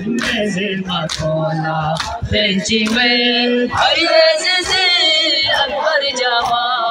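Crowd of men chanting a Shia mourning noha together, holding long sung notes in chorus, with a few sharp slaps of hands beating on chests.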